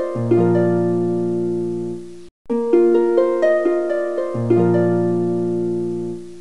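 Background music: a short phrase of plucked notes climbing over a held low chord, played twice with a brief break between, cutting off suddenly at the end.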